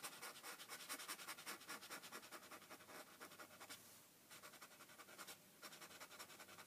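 Knife blade scraping wax crayon off a paper book page: faint, rapid short scraping strokes, pausing briefly a couple of times.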